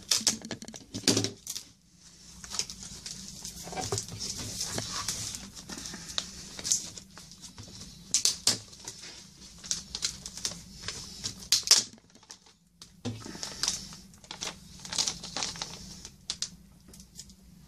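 A cardboard mailer and a clear plastic bag being handled and pulled apart by hand: scattered rustling and crinkling, with many short sharp clicks and bits of tearing.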